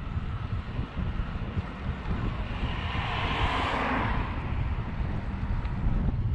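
Wind buffeting the microphone in a steady low rumble, with a rushing sound that swells and fades about three seconds in.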